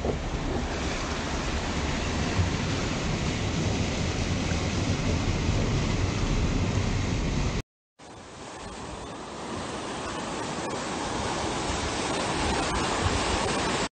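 Flash-flood water rushing through a street in a steady, noisy rush. It cuts out briefly about eight seconds in, then a second torrent of floodwater comes in quieter and grows louder.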